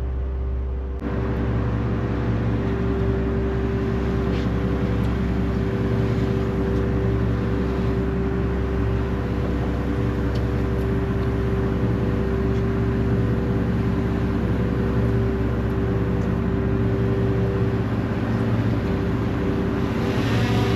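Aluminium commercial gillnetter's inboard engines running steadily under way, driving its waterjets: a steady engine drone with a hum of water and hull. It comes in abruptly about a second in.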